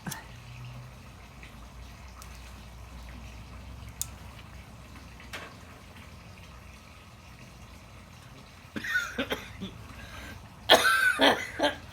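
Low bubbling of bong water while smoke is drawn, then a woman coughing in a fit from the bong smoke: a few coughs about three-quarters of the way in, then a louder, harsh run of coughing near the end.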